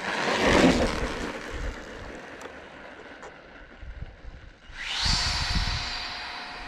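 90 mm electric ducted-fan RC jet making a fast pass: a sudden loud whoosh that fades over the next few seconds. About five seconds in, the fan's whine rises again with steady high tones as the jet comes back.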